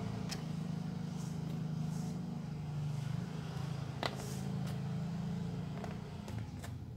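A motor running steadily as a low hum that fades near the end, with a few light clicks as metal pump parts and rubber seals are picked up and set down.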